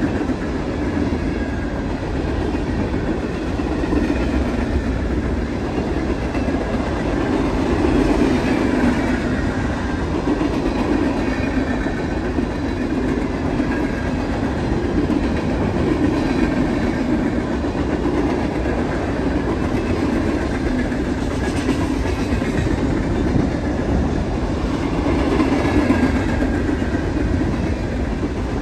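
A string of empty CSX coke hopper cars rolling steadily past, steel wheels clattering over the rails. A faint wavering high squeal comes and goes.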